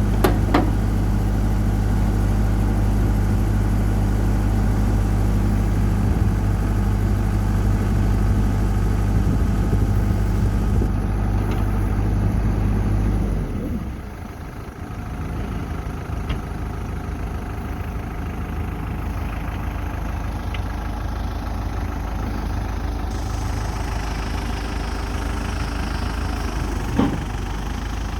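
New Holland LB75 backhoe's diesel engine running steadily at speed, then dropping back about halfway through to a lower, quieter run. A brief sharp sound comes shortly after the start and again near the end.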